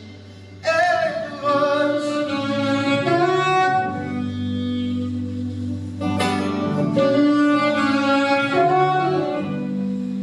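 Live band music: a lead melody line slides and bends over steady sustained low notes. It is quieter for the first moment, then the full band comes back in about half a second in.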